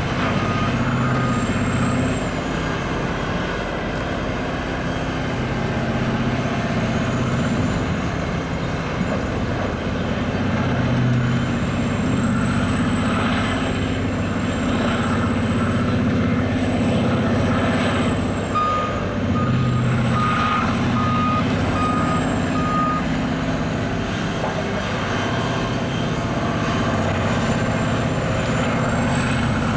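Giant mining wheel loader working, its diesel engine running steadily with a high whine that rises and falls. A reversing alarm beeps about one and a half times a second, briefly at the start and again for a few seconds past the middle.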